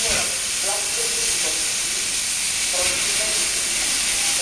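Steady hiss of steam escaping from Czech Railways steam locomotive 310.093, a small 0-6-0 tank engine.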